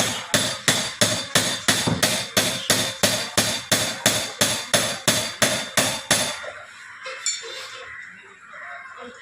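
Rapid, even hammer blows, about three a second, some twenty strikes with a slight ring, stopping abruptly a little over six seconds in.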